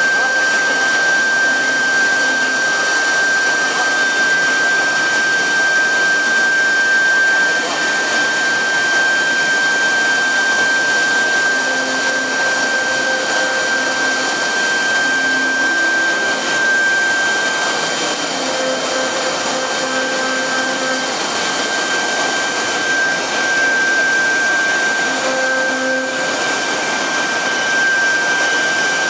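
Double-head CNC router running, its two 3.5 kW air-cooled spindles whining steadily at a high pitch as their bits carve a pattern into a board, with a lower hum coming and going.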